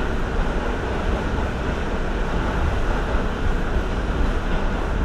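New York City subway train (the A line) running through a tunnel, heard from inside the car: a loud, steady rumble of wheels and running gear, heaviest in the low end.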